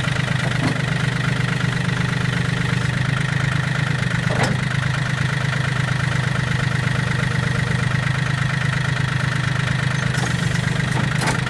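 John Deere 770 compact tractor's three-cylinder diesel engine running steadily as the front-end loader lifts a pallet-fork attachment, with a steady high whine over the engine. A sharp click about four seconds in, and fainter ones near the end.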